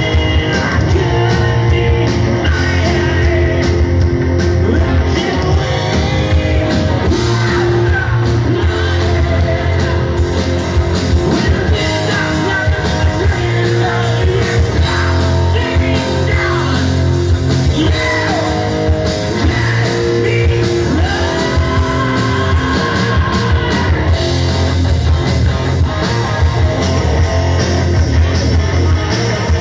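Live hard rock band playing loudly: distorted electric guitars, bass guitar and drums, with a lead singer singing over them.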